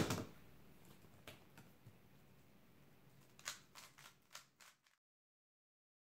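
A few faint, scattered clicks and taps of hands handling things on a desk mat, with a small cluster about three and a half seconds in; then the sound cuts out to silence.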